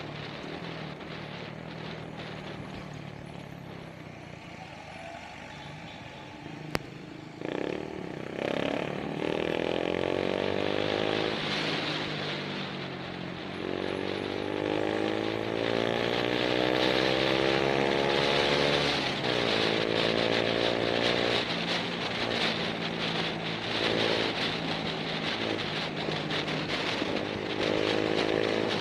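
Motorcycle engine heard from the rider's seat, accelerating up through the gears: its pitch climbs, drops at each shift and climbs again, several times over. There is a single sharp click about seven seconds in.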